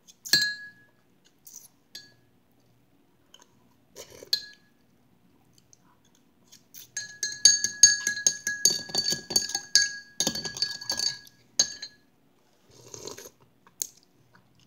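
Metal spoon clinking against a glass bowl, the glass ringing after each strike. There is a single clink just after the start and another about four seconds in, then a quick run of clinks and scraping like stirring from about seven to twelve seconds.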